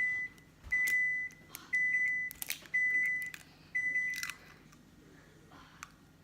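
Microwave oven beeping at the end of its cycle: five steady high beeps, each about half a second long and about a second apart, with a few sharp clicks among them. It signals that the butter inside has finished softening.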